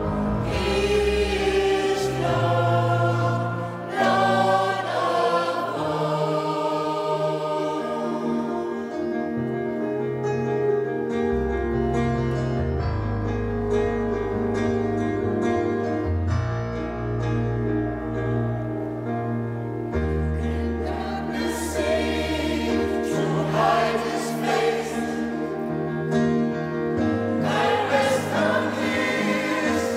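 Mixed gospel choir singing a song in parts, accompanied by a keyboard carrying low sustained bass notes. The singing thins out to a lighter passage in the middle and swells back to full voice about two-thirds of the way in.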